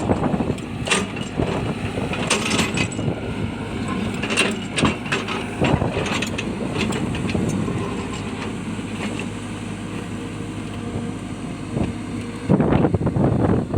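Hitachi excavator working rocky ground: the engine runs steadily while rock cracks and knocks irregularly against the bucket. It gets louder near the end.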